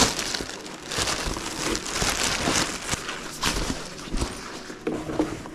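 Plastic wrapping crinkling and rustling as a padded backpack is pulled out of it and lifted from a cardboard box, an uneven run of crackly handling noise.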